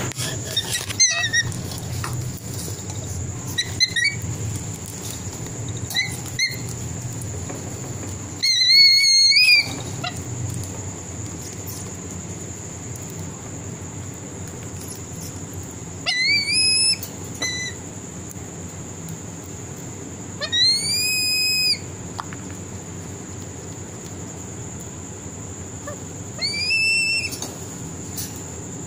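Black kite calling: high whistled calls that rise and then hold, four longer ones of about a second each, with several short chirps between them.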